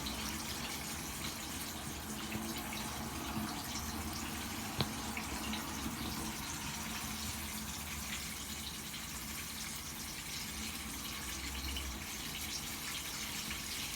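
Chicken legs frying in hot oil, a steady sizzle. A single sharp click, likely a utensil, about five seconds in.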